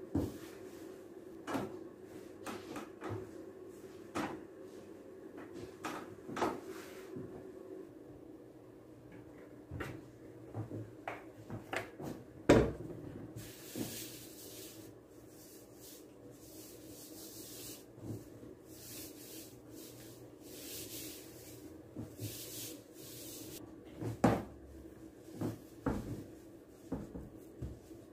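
Long thin wooden rolling pin knocking and rolling against the worktop while a sheet of dough is rolled out, with rubbing and sliding of dough and hands across the stone counter; one sharp knock about twelve seconds in is the loudest. A faint steady hum runs underneath.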